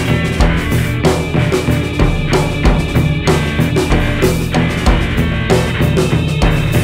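Free, experimental jazz recording led by a busy drum kit: bass drum, snare and rimshot strikes in a dense, driving pattern over sustained low notes.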